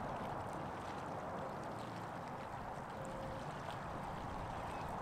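Small bay waves lapping on a rocky, pebbly shore: a soft, even wash with faint ticks.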